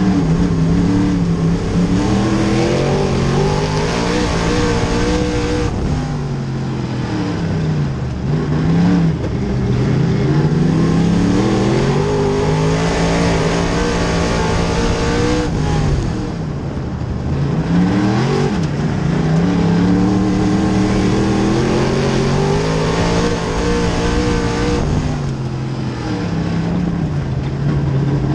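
Small-block V8 of a dirt-track modified race car heard onboard at racing speed, its pitch climbing on three long pulls down the straightaways and dropping briefly as the driver lifts off the throttle for the turns.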